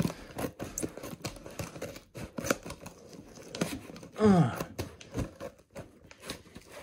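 Blade cutting through packing tape and cardboard along a shipping box's seam, with irregular scraping, tearing and crinkling of the tape. A short falling hum from the person about four seconds in.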